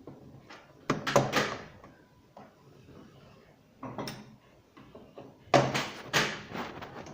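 Irregular clunks and clicks of a Consul washing machine's brake-system parts being pushed and knocked into place by hand against spring pressure.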